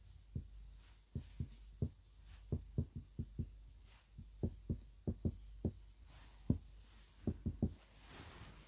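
Marker pen writing on a whiteboard: a string of short, soft, irregular taps as the tip meets the board letter by letter, with a faint swish near the end as a line is drawn under the word.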